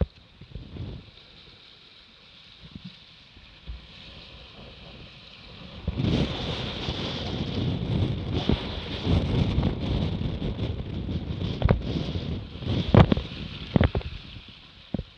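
Wind on the microphone and water rushing along the hull of a Laser Radial sailing dinghy moving fast under sail. The sound becomes much louder about six seconds in, with a few sharp slaps of spray near the end.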